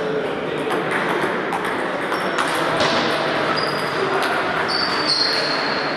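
Table tennis balls ticking off tables and paddles in quick, irregular rallies from several tables at once, some hits with a short high ping, over steady background chatter.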